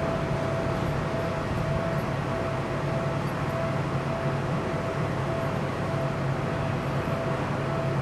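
Steady electric-train hum with a constant whine, from the running equipment of a train standing at the station.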